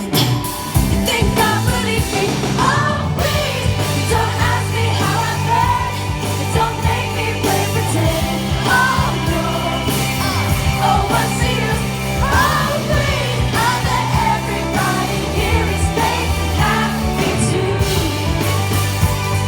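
Live rock band playing a pop-rock song with a female lead vocal over steady bass and drums, heard loud from the audience through a phone microphone.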